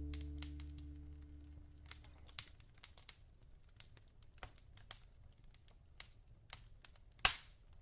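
The last low notes of a song fading out over the first couple of seconds, then a wood fire in a fireplace crackling with scattered sharp pops, one louder pop near the end.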